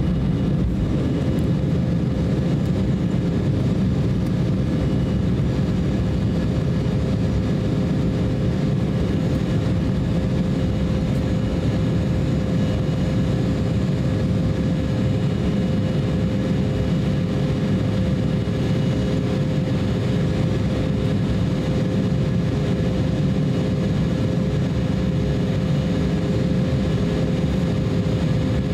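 Cabin noise of an Embraer E170 at takeoff thrust, its General Electric CF34-8E turbofans giving a steady deep roar with a steady engine tone over it, through the takeoff and initial climb.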